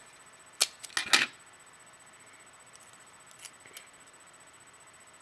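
Scotch tape being pulled from the roll and torn, a few sharp crackling snaps in the first second and a half, followed by a couple of faint ticks.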